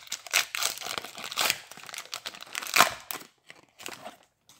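Foil wrapper of a trading card pack crinkling and tearing as it is pulled open, in irregular crackles, the loudest a little under three seconds in, then thinning to a few faint rustles as the cards come out.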